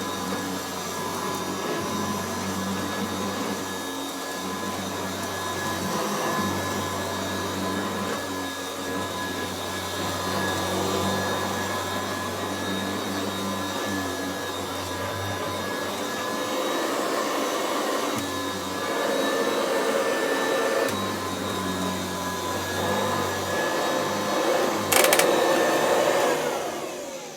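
Kirby Classic III upright vacuum's motor running steadily on carpet, on freshly replaced bearings. About 25 s in there is a sharp click and the motor winds down, its pitch falling smoothly, with no bearing screech.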